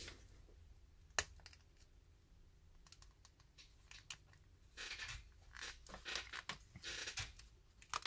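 Faint scraping and clicking of a tool prying at the edge of a tablet's glued digitizer glass: one sharp click about a second in, then several short scratchy bursts in the second half.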